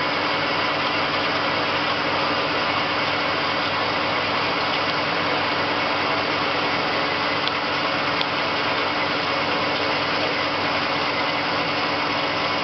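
CNC lathe turning a metal workpiece under coolant. A steady machining noise from the running spindle and the tool's cut, with a constant hum beneath it.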